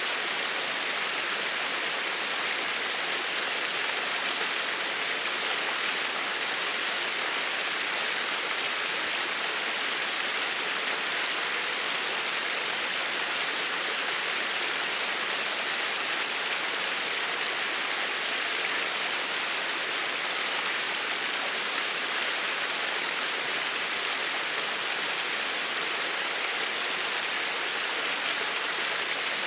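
Steady, even hiss of noise, unbroken and unchanging.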